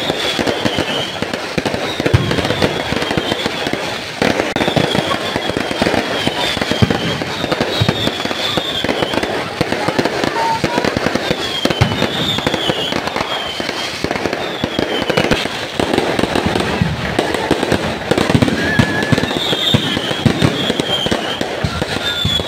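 Fireworks display going off: a dense, unbroken crackle of bangs and sparks, with short high wavering whistles recurring over it.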